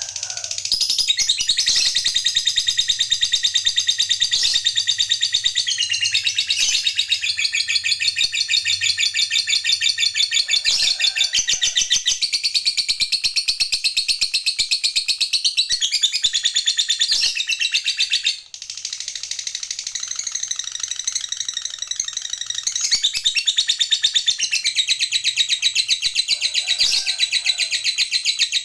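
Lovebird giving a 'ngekek panjang', the long, fast chattering trill of a lovebird in full song. It is high-pitched and almost unbroken, with one short pause about eighteen seconds in.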